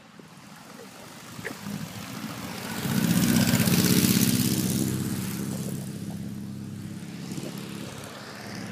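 Dune buggy engine driving past, swelling to its loudest about three to four seconds in, then fading away.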